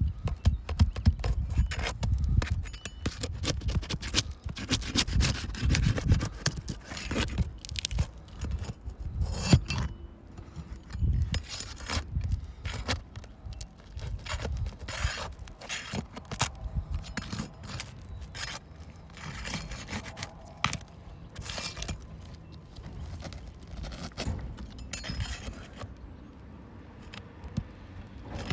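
Metal roofing tool scraping, clicking and rubbing against asphalt 3-tab shingles as the nails underneath are worked loose, in irregular bursts with low thumps of handling, busiest in the first half.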